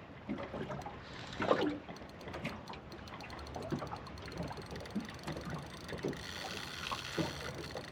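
Quiet ambience on a fishing boat with faint irregular clicks and knocks of rod and reel handling while a hooked fish is played, and one louder knock about a second and a half in.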